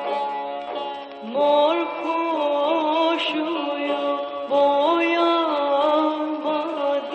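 Turkish folk song playing: a long, ornamented melody line of held notes that bend and waver, with new phrases entering about one and a half and four and a half seconds in.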